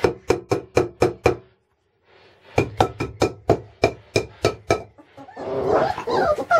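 A hollow container banged rapidly, about four to five sharp ringing knocks a second, in two runs separated by a short pause. Near the end, wavering high-pitched cries start up.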